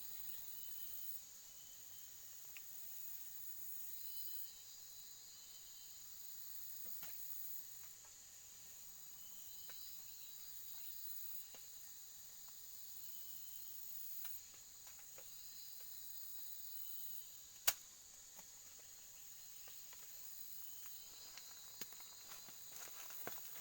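Forest insects calling: a steady high-pitched drone with short chirps repeating every second or two. A single sharp click about eighteen seconds in, and a few lighter clicks near the end.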